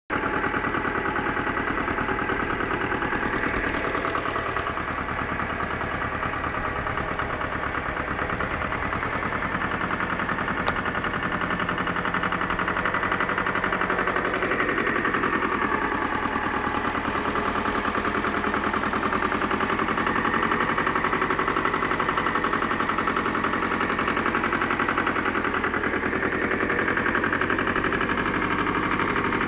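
A Pasquali 996 tractor's Lombardini LDA 672 air-cooled two-cylinder diesel running steadily, with a rapid, even knocking beat.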